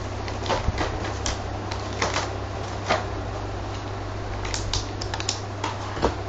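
Irregular light clicks and taps of a black plastic toy box being handled and shifted on a table, over a steady low hum.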